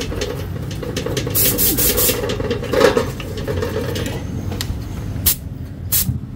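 Dirt being scrubbed off a Yamaha Sniper 150's fuel tank: a steady scraping noise, with louder bursts about one and a half seconds in and twice near the end.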